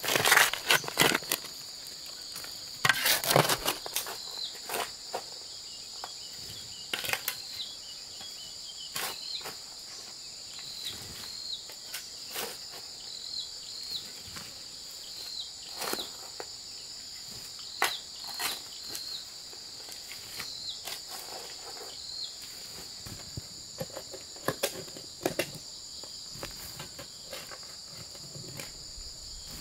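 Digging tool striking and scraping into stony soil at irregular intervals, the loudest blows in the first second and around three seconds in, softer ones every second or two after. A steady high insect chorus runs underneath.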